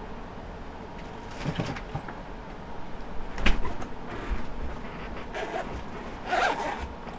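Scattered handling noises: a few brief clicks, scrapes and rustles as a screwdriver set is fetched and opened, with a sharp click about halfway through.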